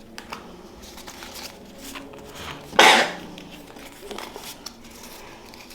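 Faint rustling and light clicks of Pokémon trading cards and pack wrappers being handled, with one short, loud noisy burst about three seconds in.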